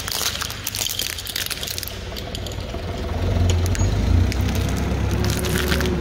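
Plastic Rubik's cubes cracking and crunching as they are crushed under a forklift's tyre, with the forklift's engine running low underneath. A burst of cracks comes in the first second or so and more cracks near the end, while the engine hum grows louder in the second half.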